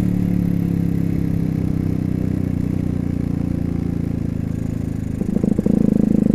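Bored-up Suzuki Satria FU 150 cc single-cylinder four-stroke engine running as the motorcycle is ridden along. The engine note sinks slowly on a light throttle, then picks up again near the end.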